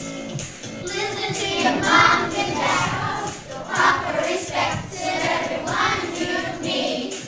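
A group of schoolchildren singing a song together.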